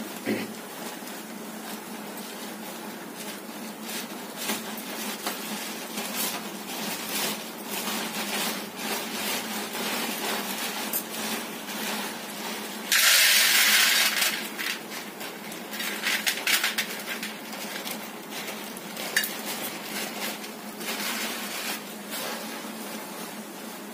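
A pan of milk tea with ginger simmering on a gas stove burner: a steady hiss with bubbling and clinks of pots and utensils. A loud burst of hissing noise comes about halfway through and lasts about a second.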